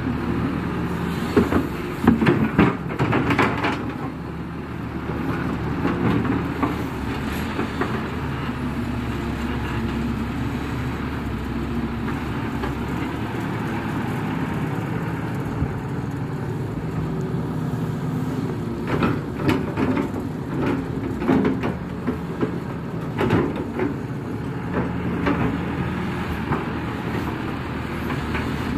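Kato crawler excavator's diesel engine running steadily under digging load. Clusters of clanks and knocks from the working bucket and arm come about two to four seconds in and again around twenty seconds in.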